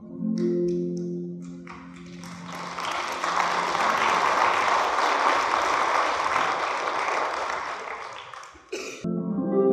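The last harp chord rings out while a few scattered claps start, then the congregation breaks into steady applause for about six seconds. The applause cuts off abruptly near the end and plucked harp music starts again.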